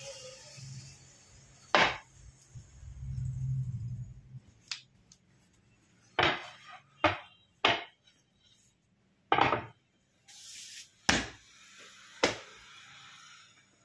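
A rolling pin rumbles over a sheet of puff pastry dough on a stone worktop, followed by about eight sharp knocks and slaps as the dough is handled and folded into layers.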